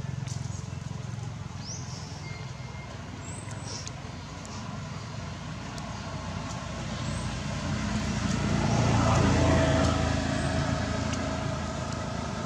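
Low rumble of a passing motor vehicle, growing louder about eight seconds in and then easing off, with a few faint short high chirps over it.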